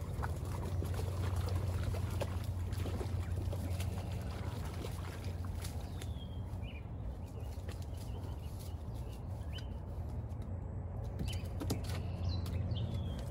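Outdoor ambience: a steady low rumble with a few faint, short, high bird chirps and light scattered clicks.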